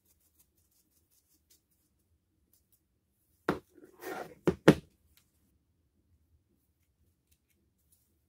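Drill parts being handled: a sharp click, a short scrape, then two more sharp clicks in quick succession about halfway through. Otherwise near silence.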